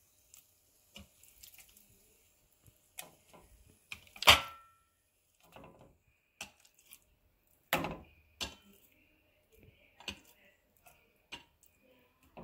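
Marinated chicken pieces being put by hand into a ceramic-coated pan: scattered soft knocks and clacks, the loudest about four and eight seconds in.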